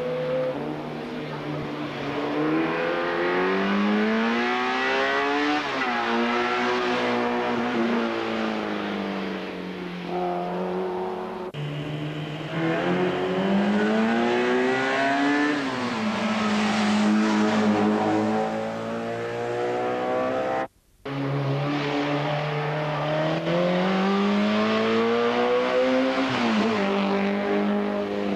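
Racing hatchback cars accelerating hard up a hillclimb course, one after another, each engine revving up over a few seconds and dropping back at the gear changes. The sound cuts abruptly between cars, with a split-second gap about two-thirds of the way through.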